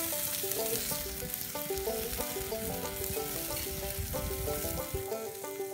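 Chicken drumsticks and burger patties sizzling on a gas grill, with background music of quick picked notes over it. A low rumble underneath stops near the end.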